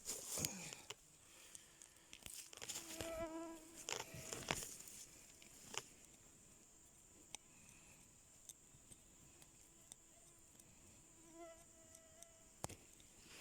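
A flying insect buzzing faintly close by, twice: about three seconds in and again about eleven seconds in. Between the buzzes come scattered soft rustles and ticks, most of them in the first few seconds.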